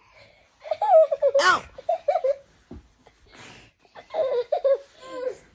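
Young children laughing and giggling in rapid bursts, with a brief high squeal about a second and a half in and another round of laughter about four seconds in.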